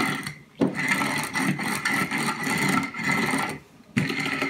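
Wooden rolling pin rolling over pie dough on a floured silicone baking mat, in strokes: a short pass at the start, a long pass of about three seconds, then another pass near the end after a brief pause.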